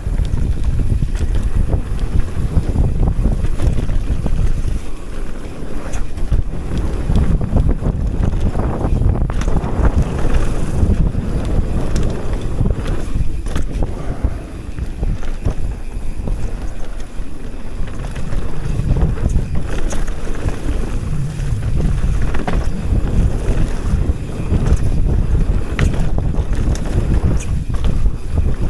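Wind rushing over the camera microphone on a fast descent of a Commencal Meta TR mountain bike, with its knobby tyres rolling over dirt and gravel. A few sharp clicks and rattles from the bike over the bumps.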